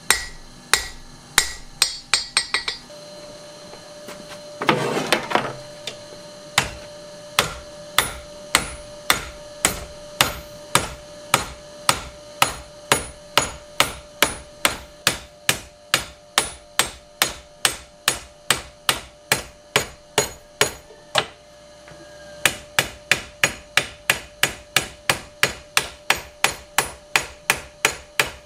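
Blacksmith's hand hammer striking hot steel on the horn of an anvil, forging a wood-carving chisel. The blows are steady, about two a second, with two short pauses, and quicken to about three a second near the end.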